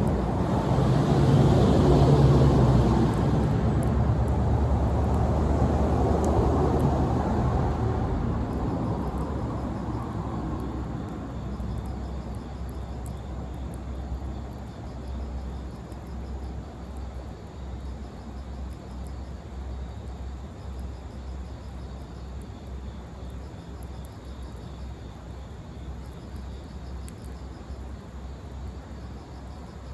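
Low engine rumble of a passing vehicle, loud at first and fading away over about ten seconds, leaving faint insects chirping.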